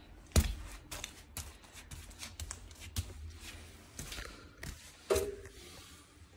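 Handling and movement noises: scattered clicks, rustles and light knocks as a plumber steps across carpet and lays a towel by a radiator, with a sharp knock about half a second in and another just after five seconds.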